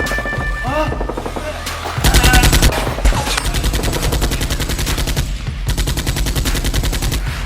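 Rapid automatic gunfire sound effect in long bursts, starting about two seconds in with a brief pause near the five-second mark, laid over action background music with a heavy bass.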